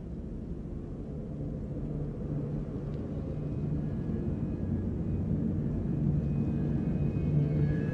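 A low, steady rumbling drone with a deep hum, slowly growing louder.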